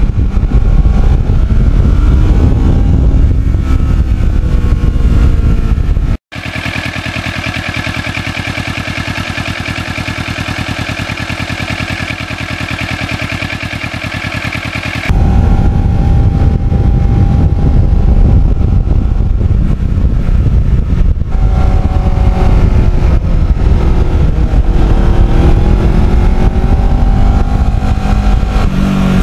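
Kawasaki Ninja 650R parallel-twin engine heard on the move under heavy wind noise, its pitch rising and falling with throttle and gear changes. About six seconds in, the sound cuts to a quieter, steady, unchanging running sound for about nine seconds, then the riding sound returns.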